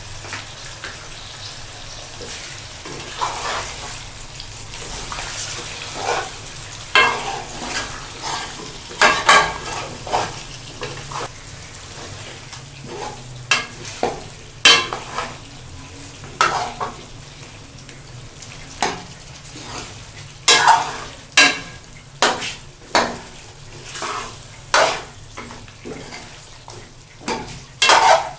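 Chicken frying with browned onions in hot oil in a pot, sizzling steadily, while a spoon stirs it, scraping and knocking against the pot in irregular sharp clatters.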